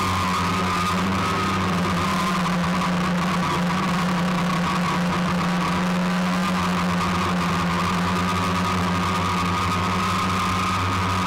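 Small remote-controlled camera drone's motors and propellers running with a steady hum and a high whine, holding the same pitch throughout.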